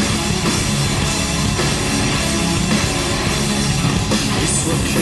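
Live hard rock band playing loudly, with drum kit, guitars and bass in a heavy rock passage, recorded in a large arena.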